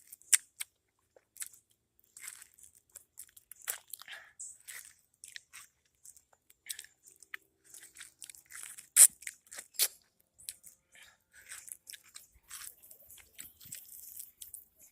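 A man eating mango up close: chewing with many short mouth clicks, the loudest about nine seconds in.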